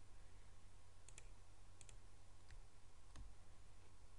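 Computer mouse button clicking four times, quietly, starting about a second in at roughly one click every two thirds of a second, over a low steady hum.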